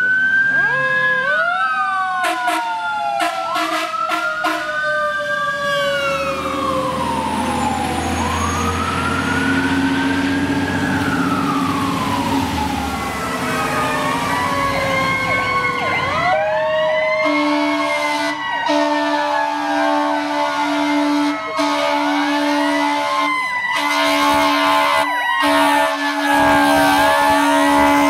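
Fire engine sirens wailing and yelping, several rising and falling at once, with a low engine sound under them in the first half. From about halfway on, long and short air horn blasts sound over the sirens.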